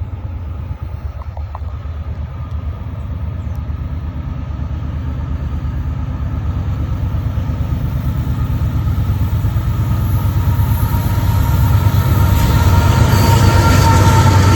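Approaching freight train's diesel locomotives, a low engine rumble growing steadily louder. In the last few seconds a steady high squeal joins it.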